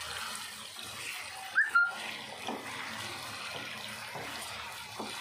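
Chicken pieces frying in hot oil in a non-stick pan, sizzling steadily while being stirred with a wooden spatula. About one and a half seconds in comes a short sharp clatter with a brief high squeak.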